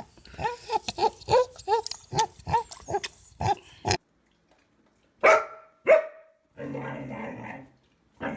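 A quick run of short, rising-and-falling animal cries for about four seconds. They stop abruptly, and after a break a dog gives two sharp barks and then a longer, rough grumbling call.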